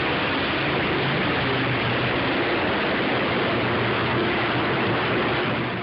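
Freight cars of a passing BNSF train rolling by close at track speed: a steady rushing roar of steel wheels on rail, starting to fade near the end.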